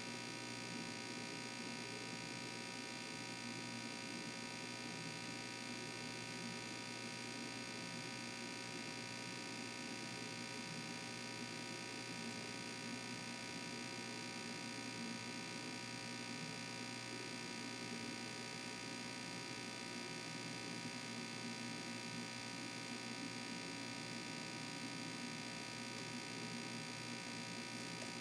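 Steady electrical hum and hiss, unchanging throughout, with no distinct chewing or other events standing out.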